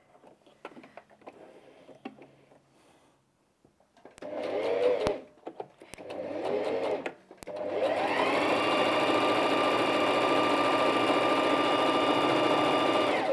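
Bernette 05 Academy sewing machine on its high-speed setting, stitching a straight stitch through cotton. It gives two short runs about four and six seconds in, then winds up and runs flat out with a steady whine for about five seconds before stopping at the end.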